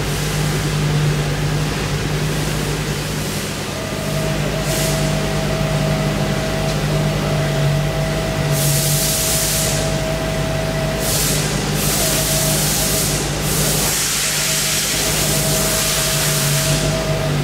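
Fadal VMC4020HT CNC vertical machining center powered up and running: a steady machine hum, joined about four seconds in by a steady whine. From about eight seconds in, several bursts of hissing come and go.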